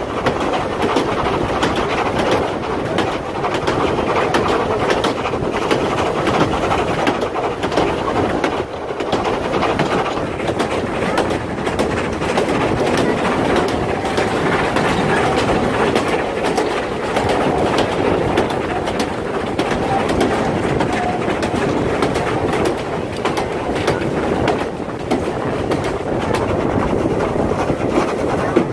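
Narrow-gauge steam train running, heard from a carriage: a steady rumble of the coaches with the clickety-clack of the wheels over the rail joints.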